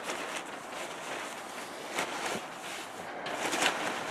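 Plastic-wrapped bale of pine shavings rustling and crinkling as it is gripped and shifted, with a few sharper crinkles about two seconds in and near the end.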